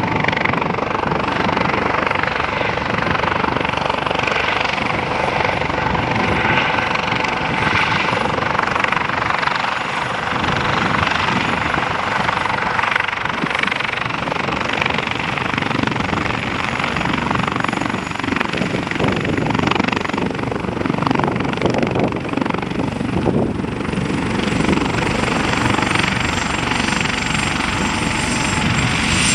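Eurocopter AS365 Dauphin helicopter running steadily as it hovers low and sets down, its twin turbines and rotors making a continuous loud noise over a high turbine whine. About three-quarters of the way through, the whine drops a little in pitch.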